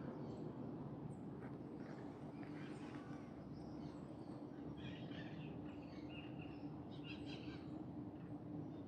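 Birds chirping faintly outdoors over a steady low hum.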